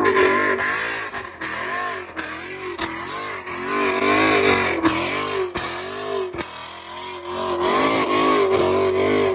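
Car engine revved hard and repeatedly, its pitch rising and falling about once a second, under a loud rushing noise.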